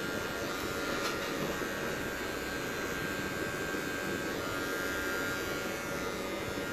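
Wahl electric hair clipper running steadily while cutting a fade on the side of the head.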